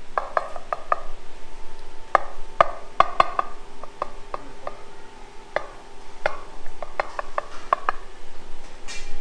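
Knife knocking against a cutting board as a coconut pot bake is cut, in irregular sharp taps that come in small clusters.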